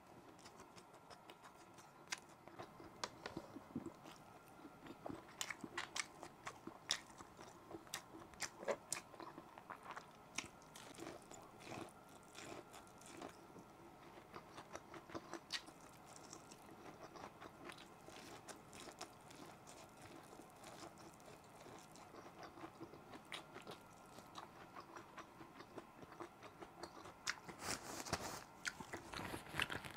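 Close-miked chewing of a mouthful of food, with many short wet clicks and smacks of the mouth. Near the end, a louder rustle of a paper tissue.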